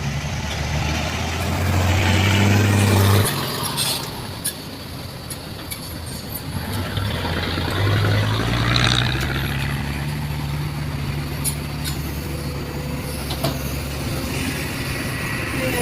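Diesel engine of a heavy construction machine working under load. It revs up about two seconds in, drops back after about three seconds, then climbs again around eight seconds and holds steady. Scattered knocks come through the engine note.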